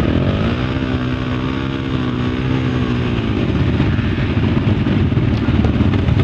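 Several off-road motorcycles running as they ride past through mud. One engine's note rises just after the start, holds steady, then drops away after about three seconds, over the steady rumble of the other bikes.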